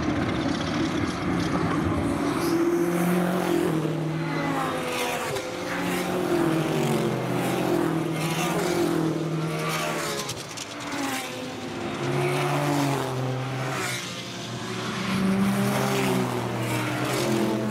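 Race car engines revving up and changing gear again and again, the engine note climbing and dropping back with each shift, with cars passing by.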